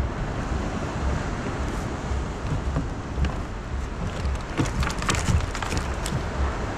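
Steady wind rumble on the microphone, with a run of clicks and rattles about two-thirds of the way in as a large California spiny lobster is handled and worked loose from a hoop net.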